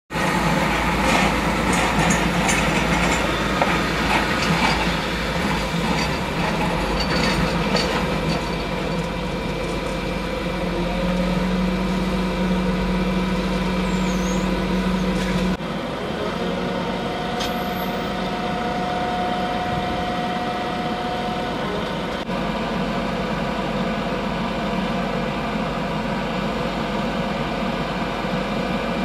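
Heavy diesel truck engine running steadily, with scattered knocks in the first several seconds. The level drops abruptly about halfway through, and steady hums come and go over the engine.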